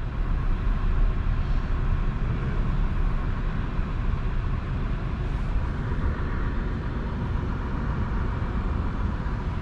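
Steady low rumble of a car running at low speed, heard from inside the cabin.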